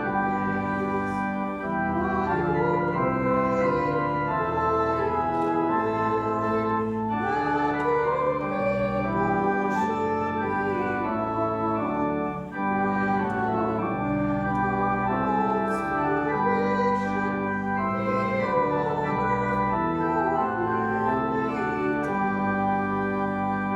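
Church organ playing a hymn, with held chords that change about once a second.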